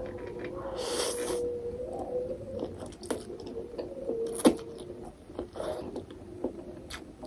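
Someone eating Nepali instant ramen close to the microphone: chewing with scattered sharp clicks of utensils. A faint wavering hum runs underneath.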